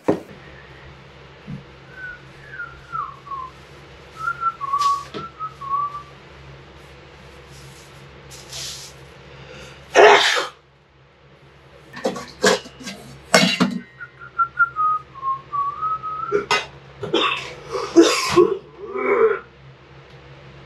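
A person whistling a short wavering tune twice, once in the first few seconds and again after the middle. Loud clattering noises come in between and near the end, over a steady low hum.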